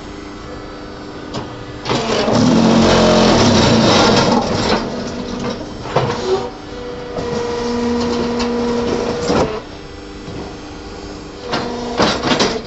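Hydraulic cement brick-making machine running a molding cycle over a steady motor hum. About two seconds in, a loud rattling vibration lasts about three seconds as the concrete in the mould is compacted. Later comes a steady whine, then knocks and metal clanks near the end.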